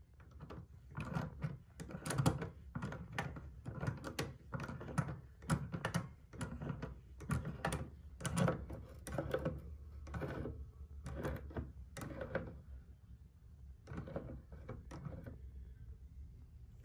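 Tongue-and-groove pliers clicking and knocking on a faucet cartridge's retaining nut as it is tightened, in irregular strokes about one or two a second.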